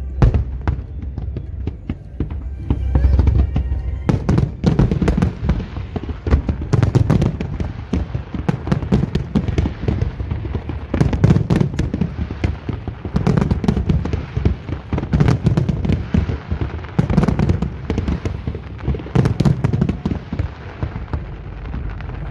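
Aerial fireworks display: shells bursting in quick succession, with deep booms every couple of seconds and dense crackling between them.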